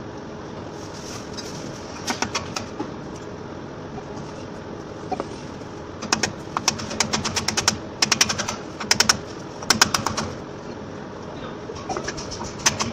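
Rapid runs of light hammer taps on a metal seal-installer driver, driving a new differential oil seal into its bore. A short run of taps comes about two seconds in, then quick bursts of taps from about six to ten seconds in, and more just at the end.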